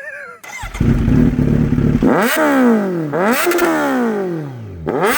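Kawasaki Z900 inline-four with an aftermarket exhaust firing up about half a second in, idling briefly, then revved in three sharp throttle blips, each rising quickly and falling away slowly, with a bassy note.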